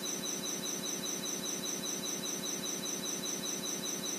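Insects chirring steadily outdoors, a high shrill note pulsing about five or six times a second.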